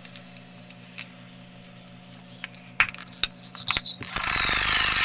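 Star-Challis coil pulse motor spinning a 1/4-inch neodymium sphere magnet, giving a high whine that slowly falls in pitch as the rotor slows. A few sharp clicks about three seconds in, then a loud metallic rattle from about four seconds as the loose magnet ball clatters against its clear plastic case.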